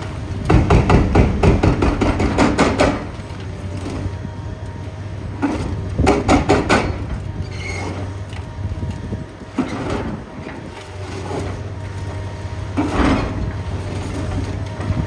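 Hydraulic breaker on a Liebherr 954 excavator hammering in bursts of rapid blows. A long burst comes first, then a shorter one about halfway through and a brief one near the end, all over the excavator's diesel engine running steadily.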